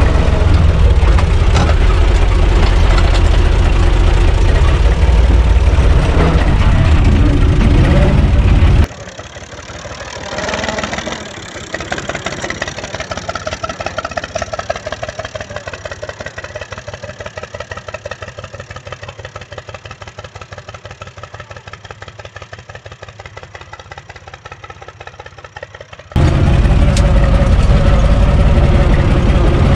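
Universal U445 DT tractor's diesel engine running steadily while driving a rotary tiller, loud and heavy from inside the cab. For a long stretch in the middle it is heard quieter and farther off, as a fast even beat of the engine, before the loud cab sound returns near the end.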